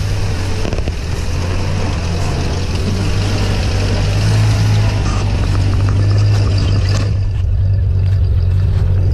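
UAZ-452 van driving slowly past over soft, snow-covered bog ground, its engine pulling with a steady low drone. The drone is loudest as the van passes close, about halfway through.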